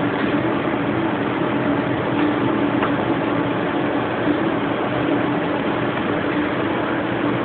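Steady machinery hum with a constant low drone, like electrical or mechanical equipment running at rest, with a faint click about three seconds in.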